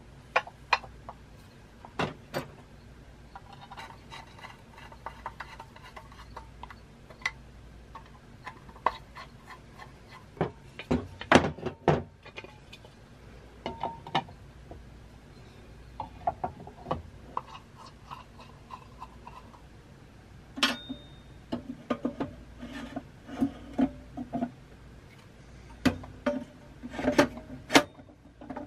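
Metal parts of a 1960s Duncan Duplex parking meter clinking, clicking and knocking as the dome housings are handled and fitted back onto the mechanisms. Scattered sharp clicks and taps, with a run of heavier knocks in the last few seconds.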